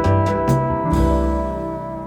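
Background music: sustained instrumental notes with a few struck onsets, settling into a held chord that fades out.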